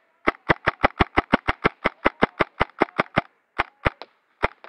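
KWA M11A1 gas-blowback airsoft machine pistol firing a rapid string of sharp shots, about six a second, for about three seconds, then a few more spaced shots near the end.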